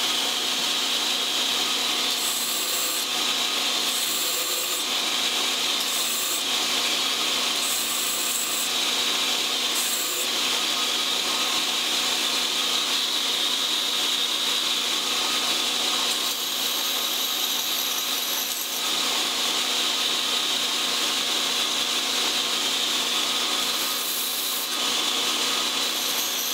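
Belt grinder running steadily, with flat knife-handle liner and G10 pieces pressed briefly against the abrasive belt, each touch adding a short scratchy hiss: several in the first ten seconds and more near the end. The pieces are being scuffed to take off their slick surface so epoxy will bond better.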